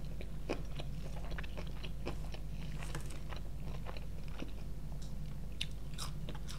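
Close-miked chewing and biting of KFC fried chicken and French fries, with scattered small crunches and wet mouth clicks over a steady low hum.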